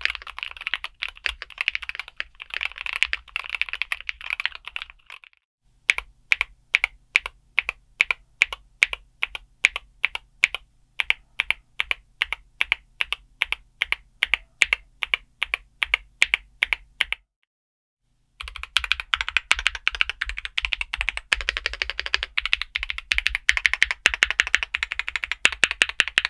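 Typing on a Keychron K2 HE Concrete Edition, a concrete-cased Hall Effect keyboard with Gateron Magnetic Nebula switches and PBT keycaps. It opens with fast typing, then moves to steady single keystrokes at about three to four a second. After a brief pause about 17 seconds in, fast typing resumes.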